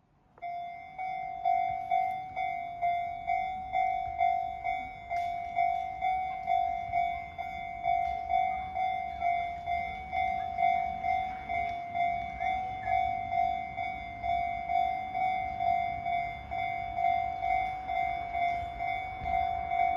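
Japanese railway level-crossing warning bell starting up about half a second in, then ringing a steady repeated ding about one and a half times a second. The crossing is a third-class crossing on the Keihan Ishiyama-Sakamoto Line: it has a warning alarm but no barriers, and the bell signals that a train is approaching.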